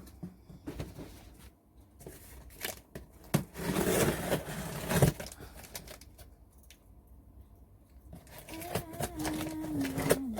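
Shipping package being opened by hand: tape tearing, cardboard and plastic packing scraping and crinkling, loudest in a noisy stretch a few seconds in. A held pitched tone, like a voice humming, comes in near the end.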